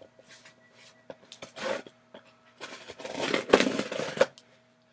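Scraping and rubbing on a cardboard shipping box as it is being worked open: a short scrape about a second and a half in, then a longer, louder stretch of scraping that stops abruptly.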